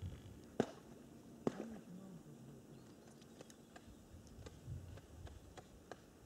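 Faint outdoor quiet broken by a handful of sharp clicks. Two louder ones come within the first second and a half, then smaller ticks follow at uneven intervals.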